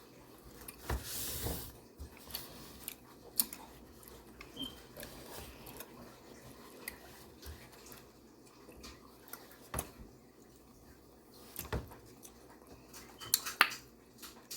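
Quiet eating sounds: chewing and scattered light clicks and taps, with a small cluster of clicks near the end.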